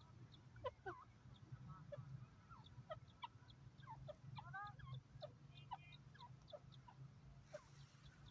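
Grey francolin giving faint, soft, short call notes, scattered irregularly, some sweeping down in pitch, over a low steady hum.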